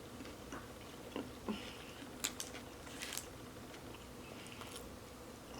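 Close-miked eating sounds: a few short, soft crackles and mouth smacks from about one to three seconds in, over a faint steady hum.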